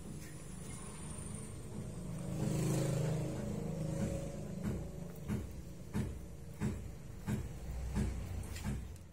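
Metal clicks from a rack-and-pinion steering gear being reassembled by hand, as a threaded plug is turned into the pinion housing: light clicks about every two-thirds of a second through the second half, over a steady low hum, with a brief louder rumble near three seconds in.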